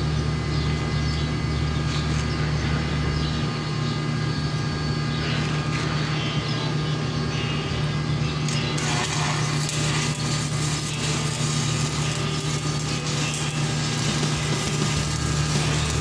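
An engine running steadily at a constant speed.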